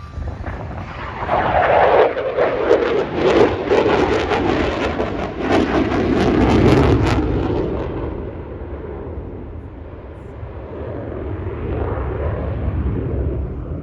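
Military fighter jet making a fast pass: a loud swell of jet engine noise with a ragged crackle that drops in pitch as it goes by, then fades, before more jet noise builds again near the end.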